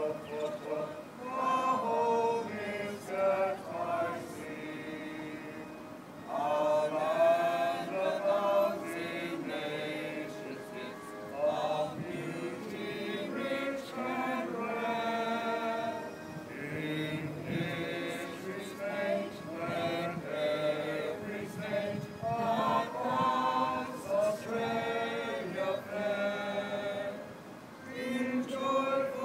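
A crowd of people singing together.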